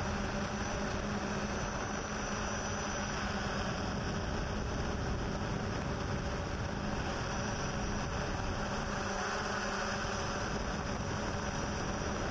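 Yuneec Typhoon H hexacopter drone's motors and propellers in flight: a steady whirring hum with a faint high whine above it.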